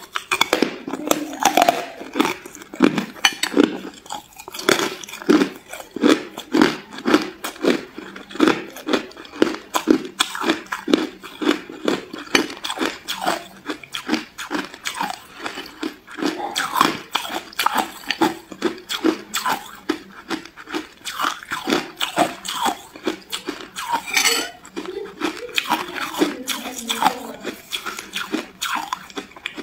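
Close-up crunching and chewing of ice in the mouth: a steady run of crunches, about two a second, with one sharper, brighter crunch late on.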